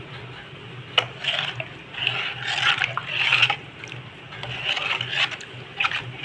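A spoon stirring a pot of thin, watery sambar to mix in salt: a metal clink about a second in, then uneven sloshing and scraping of the spoon against the pot.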